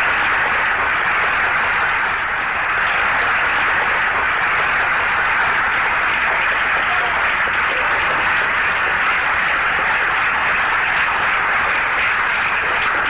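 Large audience applauding steadily, a dense sustained clapping.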